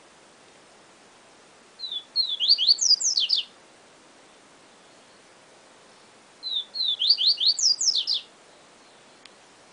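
A papa-capim seedeater (Sporophila) singing two short phrases of its 'siu siu' song, about four seconds apart. Each phrase is a few short high notes followed by a quick run of downward-sweeping whistles.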